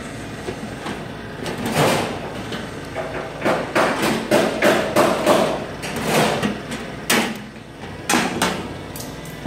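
Hand tools working sheet-metal floor panel: a run of irregular sharp metallic strokes, densest a few seconds in.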